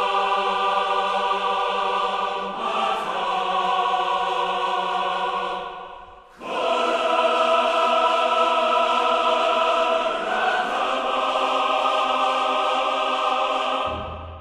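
A choir singing long held chords, changing chord about two and a half seconds in and again near ten seconds. The sound fades to a brief dip around six seconds, swells back in, and stops just before the end.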